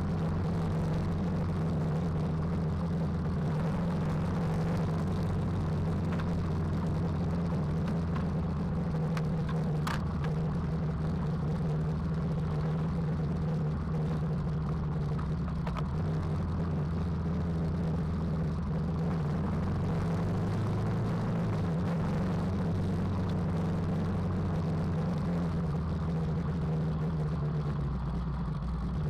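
KTM 390 Adventure's single-cylinder engine running at a steady cruising pace, its note hardly changing, with a brief click about ten seconds in.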